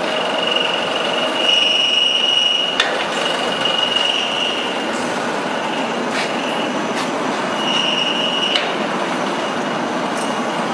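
Fried instant-noodle production line running: a steady mechanical noise with a high squeal that comes and goes, and a few sharp clacks, the loudest about three seconds in.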